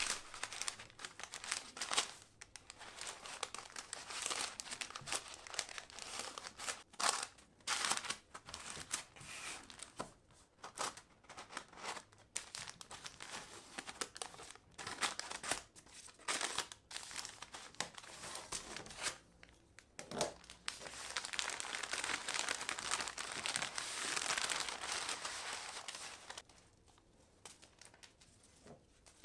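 Paper wrapped around a roll cake crinkling and rustling under the hands as it is smoothed, creased and pressed along a ruler, in uneven spells of louder and softer rustles; only faint rustles remain near the end.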